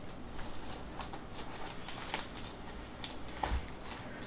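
Clear plastic wrap crinkling and rustling as a paper-wrapped cardboard box is handled, with scattered light clicks and a sharper knock about three and a half seconds in.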